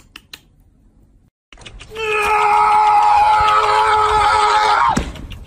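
A few light taps, then about two seconds in a dog lets out one long, steady howl lasting about three seconds that cuts off abruptly.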